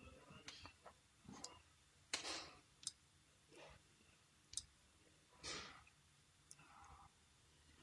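Faint handling noises from small-electronics repair work: light sharp clicks and a few short scrapes, the loudest scrape about two seconds in and another about five and a half seconds in.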